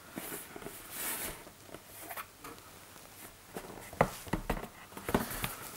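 A cardboard board-game box being handled and its lid slid off, with soft rustling and scraping of cardboard and a couple of sharper knocks near the end.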